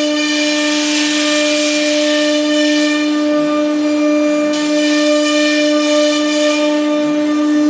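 Super Star ATC CNC router spindle running at speed with a steady high-pitched whine, over a loud rushing hiss from the bit cutting the board. The hiss thins out briefly a little past halfway, then returns.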